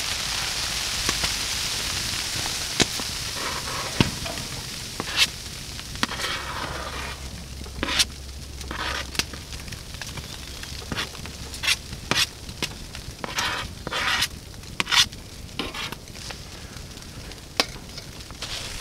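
Chopped onion scraped with a knife off a flexible plastic cutting board into a small frying pan on a wood-burning tent stove. A steady hiss for the first few seconds, then a long string of sharp clicks and scrapes from the knife and the onion landing in the pan. The pan is still heating, so there is only light sizzling.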